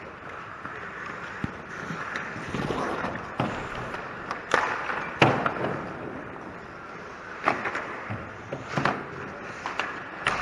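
Ice hockey play close to the goal: skate blades scraping the ice, broken by a series of sharp clacks of sticks and puck. The loudest clack comes about five seconds in.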